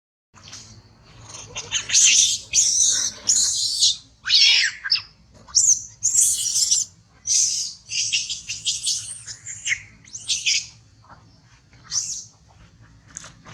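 Young macaque monkeys screaming in a run of high-pitched shrieks, each under a second, loudest from about two to eleven seconds in: the screaming of a fight.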